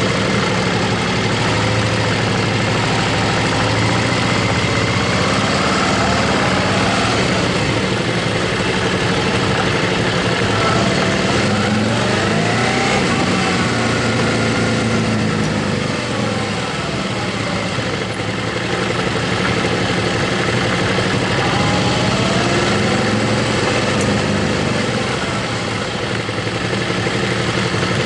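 Motorcycle engine running steadily while riding, with a dense rush of wind and road noise. The engine note rises and falls gently a few times.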